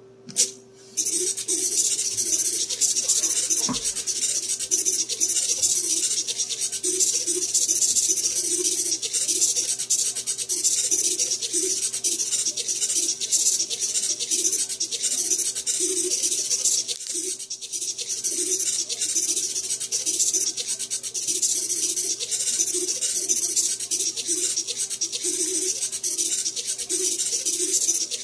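Two sharp clicks, then from about a second in a row of hobby servomotors whirring and buzzing as the robot's ten arms rapidly press and release the number keys of a computer keyboard, a dense, continuous rattling clatter of servos and key switches.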